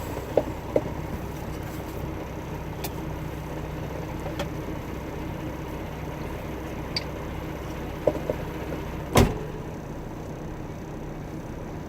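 Semi truck's diesel engine idling steadily, heard from inside the cab, with a few light clicks and one sharp thump about nine seconds in.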